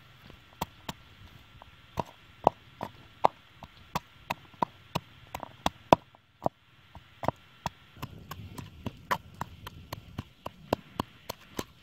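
A pestle pounding chilies and garlic in a coconut-shell bowl, giving sharp knocks about three a second, with a brief break about six seconds in.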